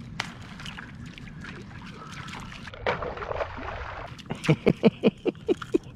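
Water splashing at the surface as a snook chases and swipes at a topwater walking lure, with baitfish spraying. The splash is loudest about three seconds in. A quick run of short knocks, about four a second, follows near the end.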